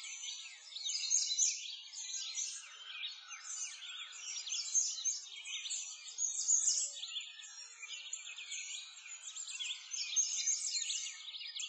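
A dense chorus of small birds chirping and singing, many high calls overlapping without a break.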